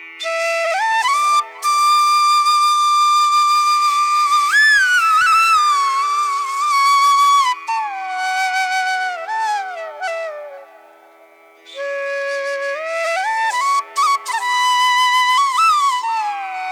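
Background music: a solo flute melody whose notes often slide into one another, over a faint steady drone. It pauses briefly about a second and a half in and again for about a second near the eleven-second mark.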